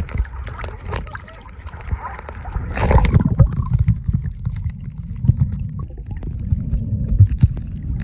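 Water lapping and splashing around a camera microphone held at the sea surface. About three seconds in, a loud splash as the camera plunges underwater. After that the sound turns to a muffled underwater rumble with bubbly knocks.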